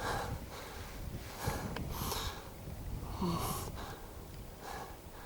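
Audible breathing close to the microphone: about five soft, noisy breaths spaced roughly a second apart.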